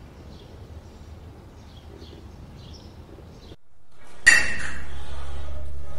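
Faint background for a few seconds, then a bright, metallic, ringing sound effect starts suddenly about four seconds in and holds at a steady level.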